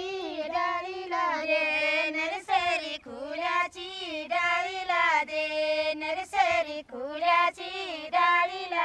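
Women singing a Garhwali folk song in high, drawn-out phrases, with a sharp beat roughly once a second.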